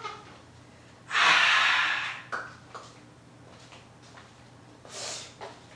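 A person breathing out hard close to the microphone, a loud breathy rush about a second in that lasts about a second, then a shorter, softer breath near the end.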